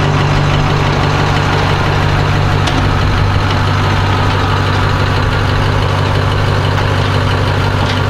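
Flatbed tow truck's engine idling: a loud, steady low hum with no change in speed. It starts and stops abruptly with the cuts.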